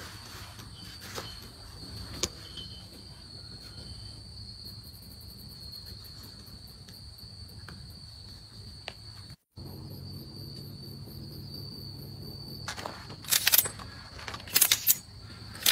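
Insects keeping up a steady high-pitched buzz, with a few faint knocks. Near the end come several loud, sharp handling clatters.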